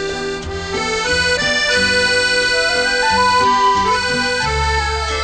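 Instrumental music: held notes and chords over a stepping bass line, with the melody holding one high note for about a second near the middle.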